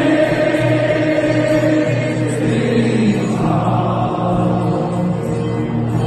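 A huge crowd of football supporters singing a chant together, thousands of voices in loose unison on long held notes.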